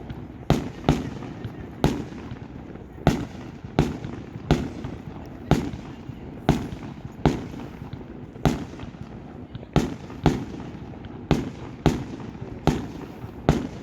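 Fireworks display: aerial shells bursting in a steady run of sharp bangs, roughly one to two a second, each with a short echoing tail, over a continuous low rumble.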